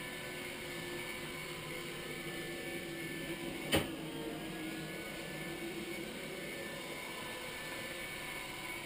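iRobot Scooba 230 robot floor scrubber running, its small motors giving a steady hum with a few held tones. One sharp knock about four seconds in.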